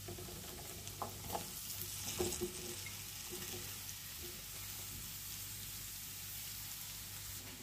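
Sliced pointed gourd being tipped into a hot pan of oil and onion-spice masala, sizzling steadily at low heat. A few soft knocks of pieces landing in the pan come between about one and two and a half seconds in.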